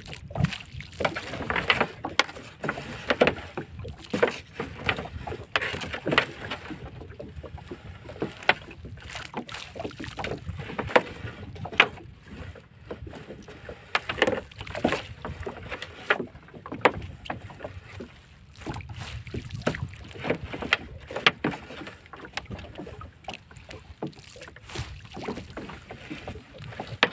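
A monofilament fishing net and its float line being hauled by hand into a small boat: irregular clicks, knocks and rustles as the mesh and floats drop onto the pile and against the hull.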